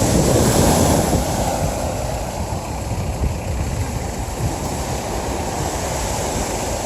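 Sea surf washing on a beach, with wind buffeting the microphone; a little louder in the first second, then a steady rush.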